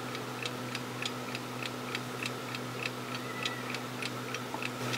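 Quiet, regular ticking, about four ticks a second, over a steady low electrical hum.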